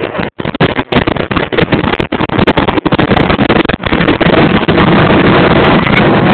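Loud jet noise from the Avro Vulcan B2's four Rolls-Royce Olympus turbojets during its display pass, heard harshly through a phone microphone. The sound cuts in and out over the first few seconds, then holds steady.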